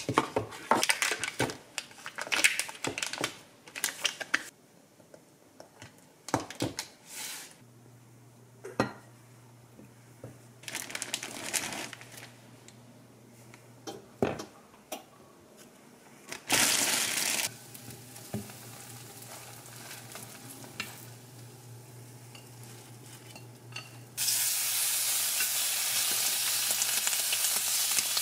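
Knocks and clatter of kitchen items being handled, then, about three-quarters of the way through, raw bacon starting to sizzle steadily in a hot frying pan; the sizzling is the loudest sound.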